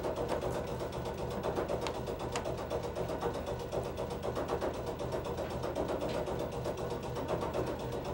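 The parked ED20 electric locomotive's auxiliary machinery runs with a fast, even clatter over a steady hum.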